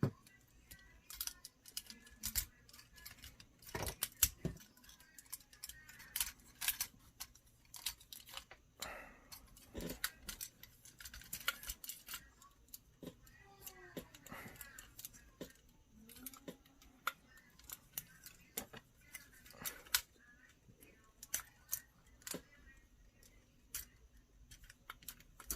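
Plastic parts of a Transformers Studio Series Ratchet action figure clicking and snapping irregularly as it is transformed by hand, with the occasional sharper click of a joint or panel locking into place.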